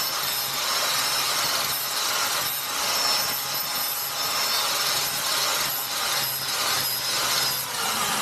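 Angle grinder with a flap disc grinding the edge of a car wheel rim to smooth out road rash, a steady high whine over a continuous rasping scrape. It stops just before the end.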